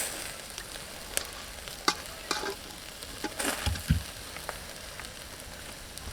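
Chicken drumsticks sizzling as they cook on a barbecue, a steady hiss scattered with sharp crackles and pops, with a couple of dull knocks a little past the middle.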